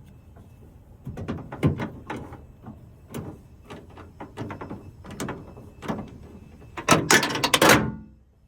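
Sharp metallic knocks and clicks of a socket wrench working at the handle bolts inside a minivan's sliding door. About seven seconds in, a dense clattering rattle, the loudest sound, as the socket extension drops and falls down inside the door cavity.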